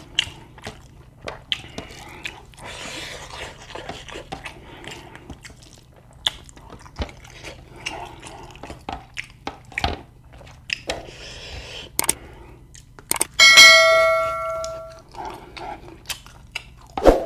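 Mealtime eating sounds: chewing and small clicks of food and tableware. About thirteen seconds in, metal tableware is knocked and rings out clearly, the loudest sound here, fading over about a second and a half.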